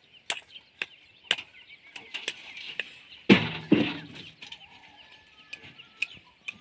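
Fired clay bricks knocking together as workers pass and stack them by hand: sharp separate clacks every half second or so. A louder, longer burst of noise comes about three seconds in. Birds chirp steadily behind.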